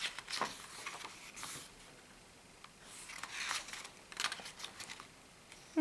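Paper pages of a printed notebook being handled and turned by hand, a few soft rustles with short pauses between them.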